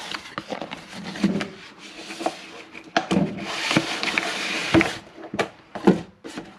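Cardboard packaging being handled: a carton opened and an inner cardboard box slid out with rubbing and scraping, then set down on a table, with several sharp knocks along the way.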